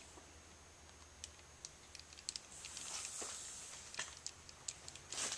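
Faint, sparse ticking and crackling from foil-faced plastic bubble insulation heating in front of a 200-watt light bulb: the sign of the plastic bubbles starting to expand and fail under the heat. A soft hiss comes in about halfway through.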